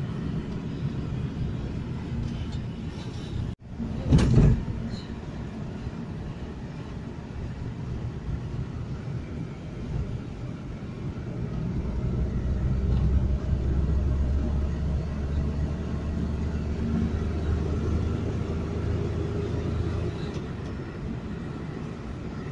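Road noise and engine hum inside a moving car, with a brief loud thump about four seconds in. The engine's low hum grows stronger from about twelve seconds in and drops back near the end.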